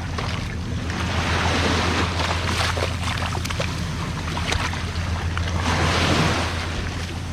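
Waves washing onto a shore, swelling twice, with a steady low rumble of wind on the microphone.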